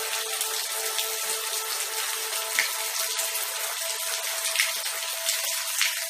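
Steady rain falling, an even hiss with scattered louder drop ticks, and a few faint held tones underneath.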